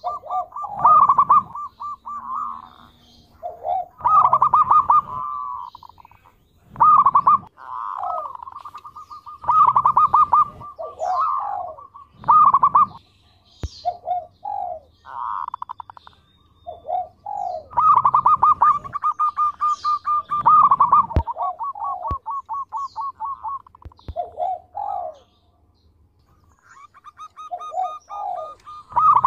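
Zebra dove (perkutut) singing: phrase after phrase of quick staccato cooing notes, each phrase opening loudly and running into a fast string of softer notes, with a pause of a couple of seconds near the end.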